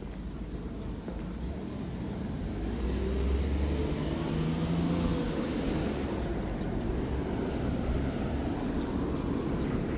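Road traffic: a car passes close by, its engine and tyre noise swelling to a peak about three to five seconds in, with the traffic rumble going on after.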